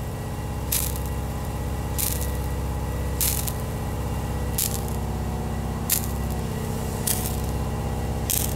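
Soft wash system spraying a stream from its gun's nozzle tip onto concrete, over a steady low machine hum. Short hissy spurts come about every 1.2 seconds.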